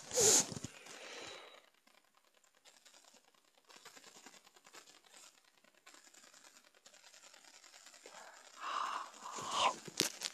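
Handling noise from a phone held close to the face: a loud rustle at the start, faint scattered rustling through a mostly quiet stretch, then louder rustles and a few sharp clicks near the end.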